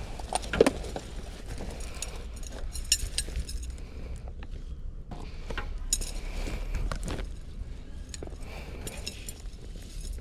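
Scattered light clinks and knocks of small hard objects, the sharpest just after the start and about three seconds in, over a low steady rumble.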